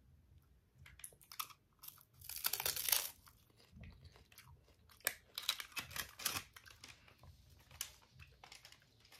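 Biting and chewing a crispy rolled seaweed snack: irregular sharp crunches and crackles, the loudest run about two to three seconds in and another cluster around five to six seconds.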